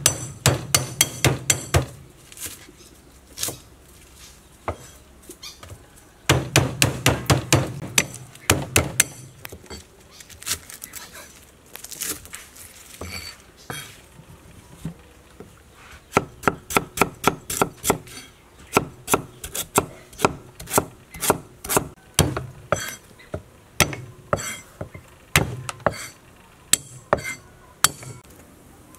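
A cleaver chopping on a thick round wooden chopping block, cutting lemongrass and garlic. It goes in quick runs of sharp chops, about five a second, each run lasting a few seconds with short pauses between.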